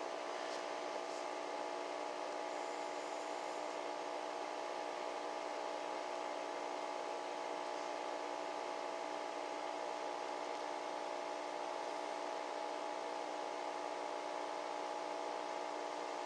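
Steady electric hum of a small motor running, with several fixed tones over a faint hiss, from the aquarium's equipment.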